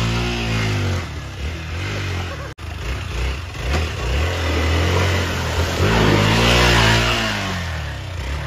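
Off-road motorcycle engine revving up and down in repeated bursts as the bike is forced through deep mud, with its rear wheel spinning and throwing mud and water. The sound drops out briefly about two and a half seconds in, and the revving with splashing is loudest near the end.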